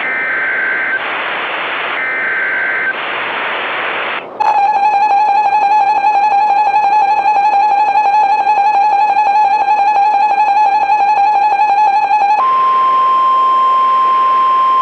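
Emergency Alert System tones: three short warbling SAME data bursts with hiss between them, then the two-tone EAS attention signal for about eight seconds. Near the end it switches to a single steady warning tone.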